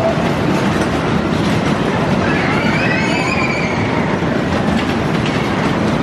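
Vintage fairground Skid ride running: a steady loud rumble and rattle of its cars going round the track, with a whine that rises and then falls about halfway through.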